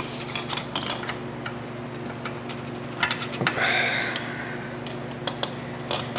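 Irregular light metallic clicks and clinks of a socket on a long extension as the cylinder-head bolts of a Polaris Sportsman 700 are started by hand, with a short higher-pitched scrape a little before four seconds in.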